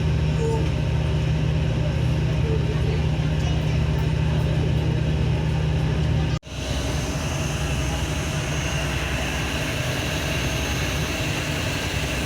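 Steady drone of a passenger car ferry's engines under way, with a deep hum throughout. About six seconds in the sound cuts out for an instant and resumes with less of the deep rumble and more hiss.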